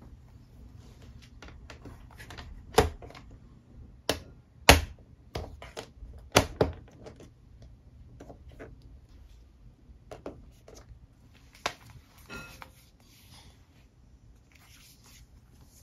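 A purple iPad Air being pressed into the hard plastic back shell of an ESR trifold case: a string of sharp plastic clicks and snaps, bunched in the first half with one more near the end, and soft handling and rubbing between.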